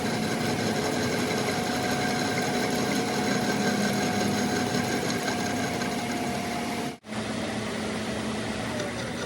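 A machine's motor running steadily with a constant hum. It cuts out for an instant about seven seconds in, then carries on.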